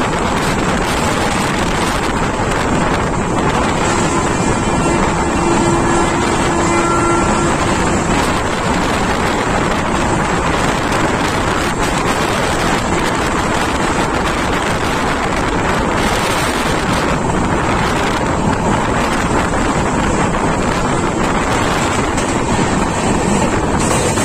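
Train running through a halt without stopping, heard from on board: the steady noise of the moving train with wind rushing over the microphone.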